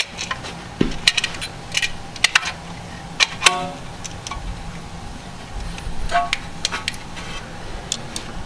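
Caliper cover and its metal retaining clips being handled and pressed onto a brake caliper: a run of sharp metallic clicks and taps, with a short ringing ping about three and a half seconds in and another about six seconds in.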